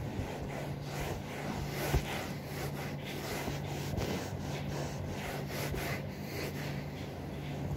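Hand-scrubbing a sofa's surface, with repeated rasping strokes about twice a second. A steady low hum runs underneath, and there is a single knock about two seconds in.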